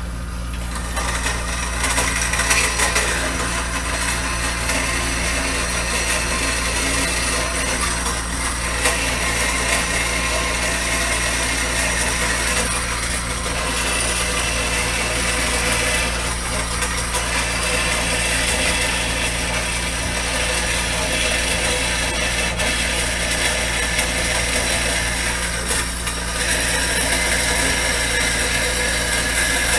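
12-inch Craftsman vertical band saw, converted for metal, running steadily while its blade saws through a piece of aluminum. An air compressor runs at the same time.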